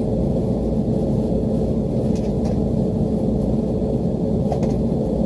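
Rooftop HVAC equipment running: a steady low rumble with an even mechanical hum, with a few faint clicks of hand tools.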